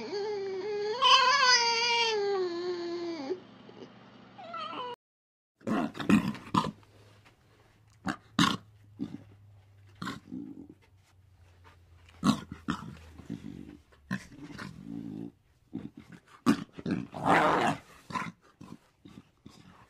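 Red fox calling: a drawn-out whining squeal with several overtones that falls in pitch and breaks off about three seconds in. After a short gap come scattered short, sharp sounds at uneven intervals, with one longer one near the end.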